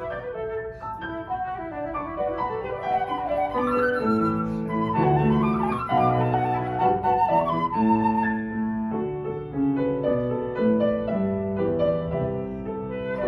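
Concert flute playing a melody over grand piano accompaniment.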